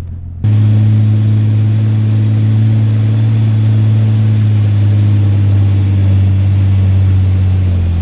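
Vehicle engine running steadily while driving, a loud, even low hum that starts abruptly about half a second in.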